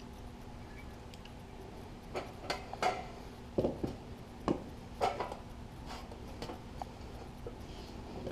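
Irregular light metallic clinks and taps as punched sheet-metal tool box parts are handled and fitted together, most of them bunched from about two to five seconds in, over a faint steady hum.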